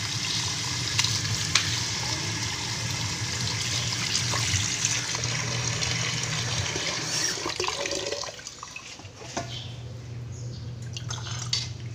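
Tap water running into a stainless steel sink while pork pieces are rinsed by hand in a metal colander, then splashing into a cooking pot. The flow stops about eight seconds in, leaving a few light clicks of handling.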